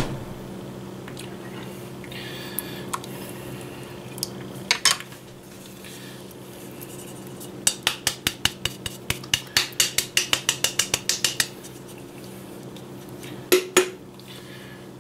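A jar of marinara sauce knocked repeatedly against the crock pot to shake the sauce out: a quick run of about twenty hard clinks, roughly five a second, from about halfway through, with a few single knocks before and after.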